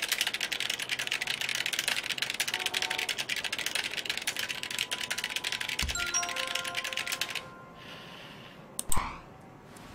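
Rapid typing on a keyboard, a dense run of key clicks that stops about seven and a half seconds in, followed by one sharp click near the end.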